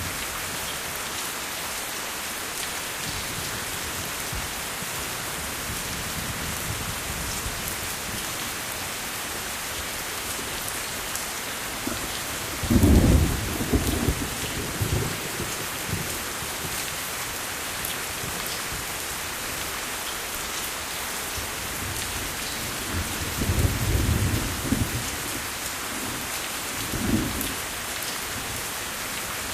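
Steady heavy rain hissing, with rolls of thunder rumbling in about halfway through and again twice later.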